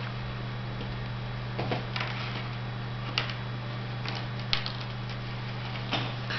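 Plastic drinking straws handled while fishing line is threaded and tied through them: a few light, irregular clicks and rustles as the straws knock together, over a steady low hum.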